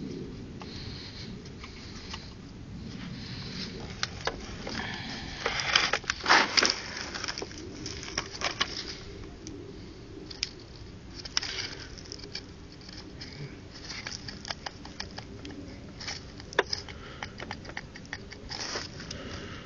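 Scattered clinks, knocks and scrapes of metal parts being handled while a Copeland refrigeration compressor is taken apart, with a cluster of louder knocks about six seconds in.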